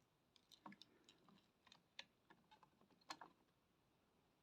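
Near silence with a few faint, scattered clicks as a cooling fan is handled and pressed into a laptop's opened chassis.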